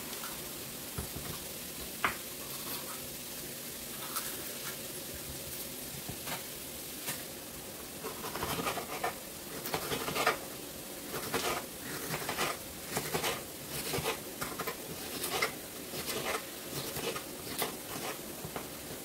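Knife chopping a red bell pepper on a wooden cutting board: a few scattered taps at first, then quicker, irregular strokes from about eight seconds in, over a steady faint hiss.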